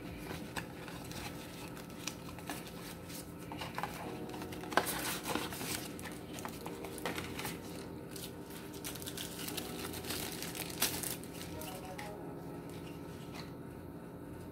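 Cardboard and paper phone packaging being handled: rustling, crinkling and sliding of the box parts and inserts, with scattered sharp taps and clicks, loudest about five seconds in and again just before eleven seconds.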